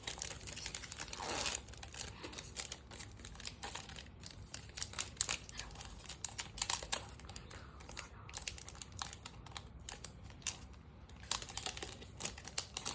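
Trading card pack being opened and its cards handled: crinkling foil wrapper and a dense run of small clicks and rustles as the cards are slid and flicked.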